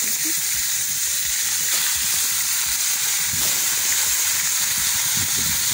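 Chunks of meat frying in hot oil and animal fat in an aluminium pot, with a steady sizzle.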